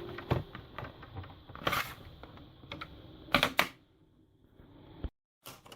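Plastic clicks and taps as a laptop's screen bezel is pried off its retaining clips, with louder clusters of clicks about two and three and a half seconds in. The sound cuts out completely for a moment near the end.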